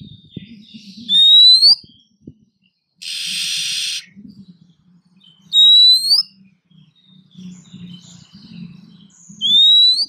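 Female oriental magpie-robin calling: three loud rising whistled notes, each about half a second and a few seconds apart, with a harsh rasping burst about a second long in between. These are the calls of a female in breeding condition, used to draw in a male.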